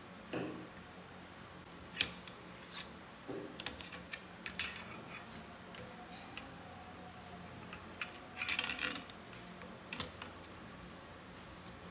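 Parts of a laptop cooling-fan bracket being handled and fitted together: scattered sharp clicks and taps of hard pieces knocking and snapping against each other, with a few short rustling scrapes, the loudest around the middle and near the end.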